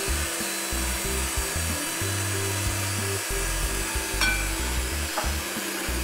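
Electric hand mixer running steadily, its beaters whisking egg, sugar and oil batter in a glass bowl, with one brief clink about four seconds in. Background music with a bass line plays underneath.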